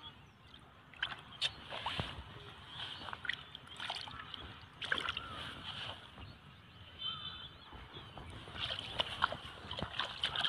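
Hands sloshing and groping in shallow muddy water, with irregular small splashes, busier near the end.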